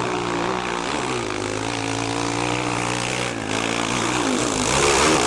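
Dirt bike engines revving hard under load on a steep climb, their pitch dipping and rising with the throttle. There is a short break about three and a half seconds in, and the loudest revving comes near the end.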